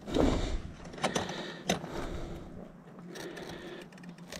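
Copper wires being handled and twisted together with pliers inside a plastic electrical box. A soft rustle at the start is followed by scattered small clicks and scraping of metal jaws on wire.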